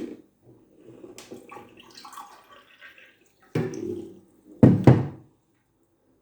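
Water run from a tap into a glass in short spurts, with small knocks and clinks. The loudest spurts come around three and a half and five seconds in.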